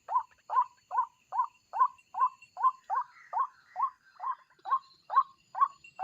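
White-breasted waterhen (ruak-ruak) calling: a steady run of short, evenly spaced notes, about two and a half a second.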